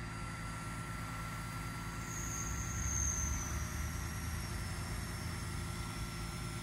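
Heavy truck's diesel engine running steadily to drive the hydraulics of its Atlas knuckle-boom crane as it swings a load. About two seconds in, a high hydraulic whine comes in and the engine swells for a second or so before settling back.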